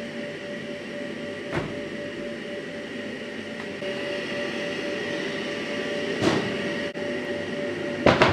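Steady roar of gas burners with a constant hum over it. It is broken by a few short metal knocks and clanks of a ladle, the loudest cluster near the end.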